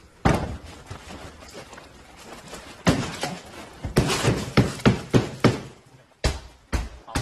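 Hammer blows on parked cars: a single hard hit near the start, another about three seconds in, then a quick run of strikes about three a second, and a few more near the end.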